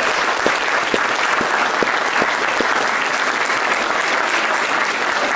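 Wedding guests applauding steadily, with a few nearby claps standing out.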